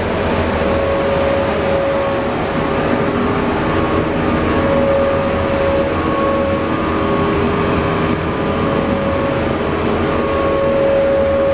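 Morbidelli M100 CNC processing centre running: a steady mechanical hum and rush of air, with a mid-pitched tone that swells and fades several times.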